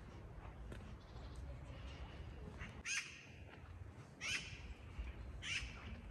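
A bird calling outdoors: three short calls, the first about three seconds in, each about a second and a half after the last, over a low steady background rumble.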